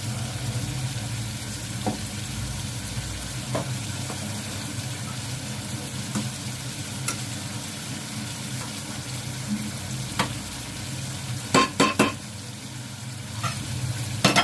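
Beef masala sizzling in oil in a steel pot over a gas burner, while a metal spoon stirs and clinks against steel pots. A quick run of three loud knocks comes near the end, and one more at the very end.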